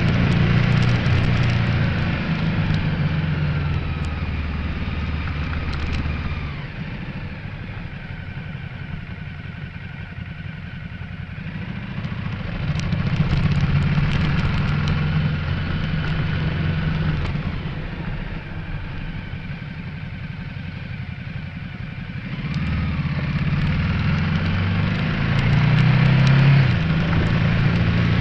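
Ducati Multistrada 1200S's L-twin engine running on the move, heard from a windshield-mounted camera with wind rushing past. The engine note grows louder three times and falls back in between.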